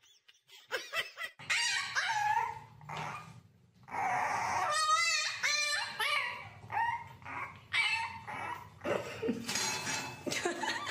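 Puppy whining and yelping: a series of short, pitched cries, some of them wavering.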